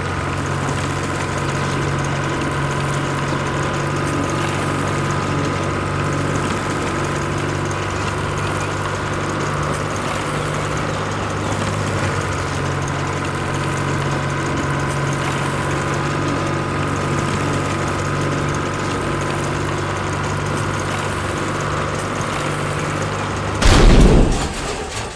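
An engine running steadily at a constant speed, then a single loud bang near the end.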